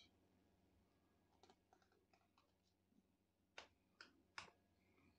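Faint clicks from a Lenovo G500 laptop being handled and taken apart: a few light ticks, then three sharper clicks in quick succession about three and a half seconds in.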